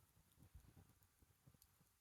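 Faint crackling of a wood bonfire: scattered small ticks, with a few soft low thumps, the loudest about half a second in.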